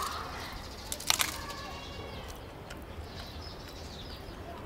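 Crunch of teeth breaking through the flaky, crisp crust of a baked char siu bun about a second in, then quiet chewing.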